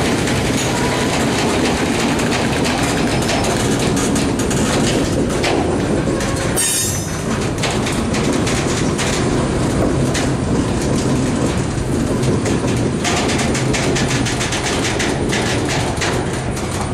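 Covered hopper cars of a freight train rolling past close by, their steel wheels clicking over the rail joints in a steady clickety-clack.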